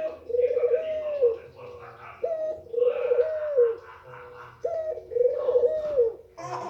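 Female white Barbary dove cooing: the same low coo phrase repeated about every two and a half seconds, a short upward note followed by a longer rolling coo that drops away at its end, about three times.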